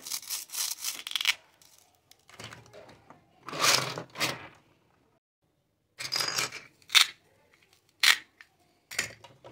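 Plastic toy kitchen pieces and toy fruit being handled on a table: a quick run of scraping rustles, two longer noisy scrapes, then three sharp plastic clicks near the end as pieces are set down.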